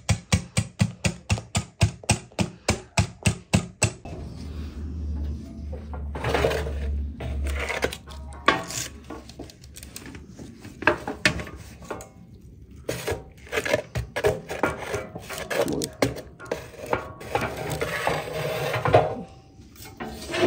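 A wire whisk beating eggs and sugar in a glass bowl, clinking against the glass in a quick even rhythm of about five strokes a second. After about four seconds it stops, and irregular metal clanks and scrapes follow as a baking tray is handled at an oven and the oven door is shut.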